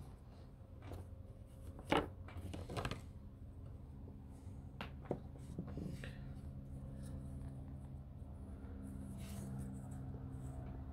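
Light knocks and clicks of miniature figures on their bases and paint pots being handled on a tabletop. The sharpest knock comes about two seconds in, with a few smaller clicks soon after and two more near the middle, over a faint steady low hum.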